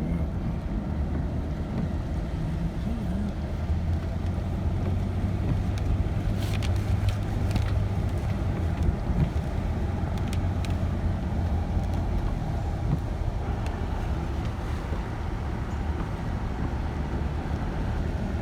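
Steady engine and tyre rumble of a car driving on a wet road, heard from inside the cabin, with a few faint clicks.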